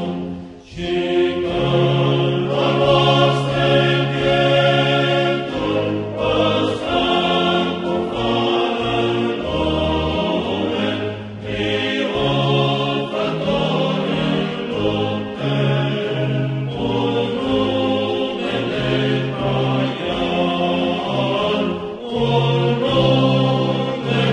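Choral music: a choir singing slow, sustained chords, with a brief break about a second in.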